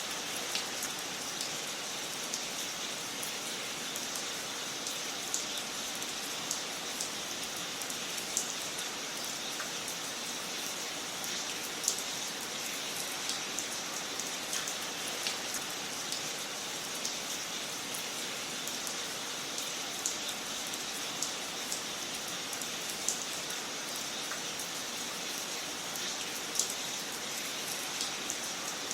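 Wood fire crackling in a fireplace: a steady hiss with small sharp pops and snaps at irregular intervals, a few louder ones standing out.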